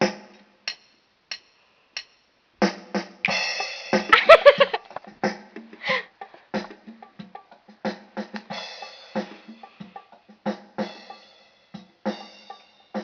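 Electronic keyboard playing back its drum-kit voices: a few scattered drum hits at first, then from about three seconds in a dense, busy run of drum beats mixed with pitched tones.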